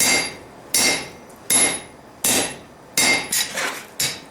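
Hand-forging hammer blows from a four-pound hammer on hot steel, closing a spring swage in an anvil's hardy hole around a round bar. About seven steady blows come a little more than one a second, each with a short metallic ring, and they stop near the end.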